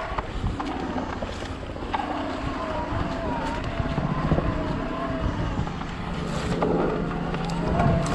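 Shimano Steps E8000 mid-drive e-bike motor working in full boost under hard pedalling, a whine that wavers up and down in pitch. Under it are the bike's rumble and knocks over rough trail, with wind on the microphone.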